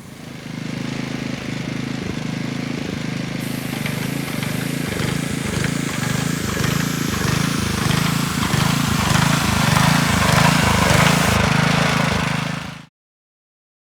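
Heavy construction machinery running: a diesel engine with irregular clattering, growing slowly louder, then cut off abruptly near the end.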